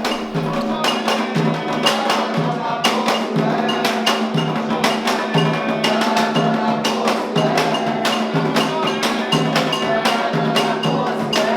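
Background music with wooden percussion knocking on a steady beat over a sustained low note.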